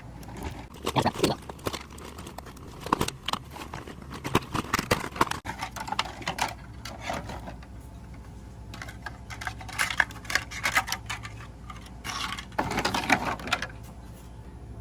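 Hands freeing a plastic model airplane's fuselage from its packaging: ties being pulled off and plastic clicking and rustling in irregular bursts.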